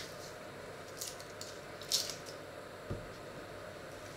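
Dry papery crackles and a few small clicks as a paring knife peels brown skin off an onion, with one soft low knock on the wooden board later on.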